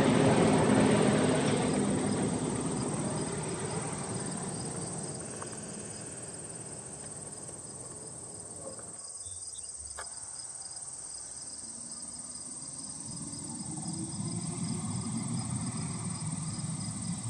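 Crickets and other insects trilling steadily, a high continuous trill with a quicker pulsing chirp over it. A broad rumble fades away over the first few seconds and a softer one swells again near the end.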